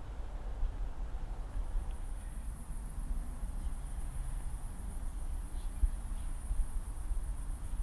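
Summer insects, cricket-like, chirring in a steady high-pitched drone that comes in about a second in, over a constant low rumble.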